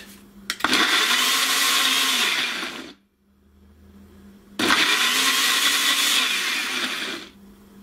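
Personal blender running in two bursts of about two seconds each, with a short stop between them, puréeing pineapple chunks with a little cream.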